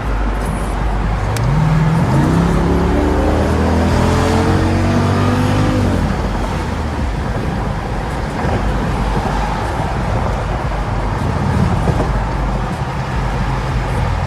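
Car engine accelerating, its pitch climbing for about four seconds before it drops away, then steady road and engine noise while cruising.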